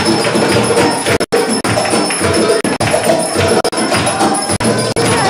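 Loud dance music with a steady beat and jingling percussion. The sound cuts out for an instant about a second in.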